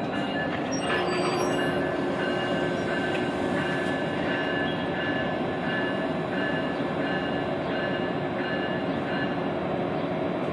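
NICTD South Shore Line electric bilevel commuter train passing slowly at close range on street-running track, its wheels and cars making a steady running noise. A steady low tone joins about a second in, and a faint high tone repeats about every two-thirds of a second until near the end.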